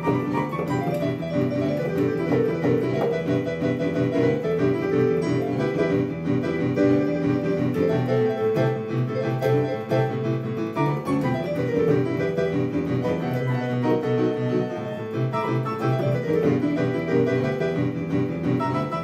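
Boogie-woogie improvised on an electronic keyboard set to a piano sound: a driving left-hand bass pattern under right-hand licks and falling runs.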